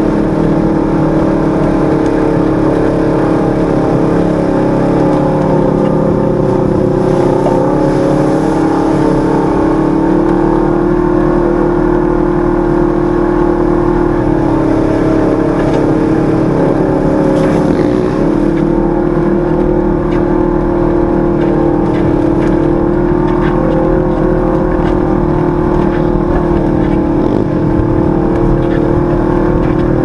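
Engine of a 1000 cc sport side-by-side (UTV) running under steady throttle at trail speed, recorded onboard. Its pitch dips and picks back up a few times as the driver eases off and gets back on the throttle.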